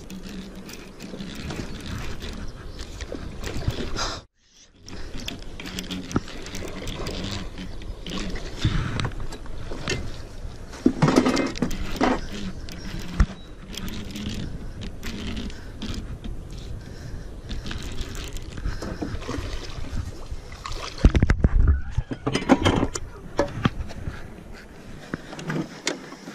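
Close handling noise from a fishing rod and baitcasting reel in a kayak: irregular rubbing and small knocks, with louder clusters of bumps about eleven and twenty-one seconds in.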